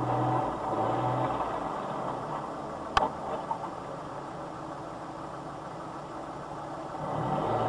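Vehicle engine idling with a steady low hum that swells near the end, and a single sharp click about three seconds in.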